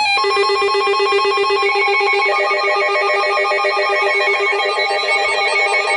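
Electronic emergency-alert tone: a loud, fast warbling trill like a phone ringing. More warbling tones join on top about two seconds in.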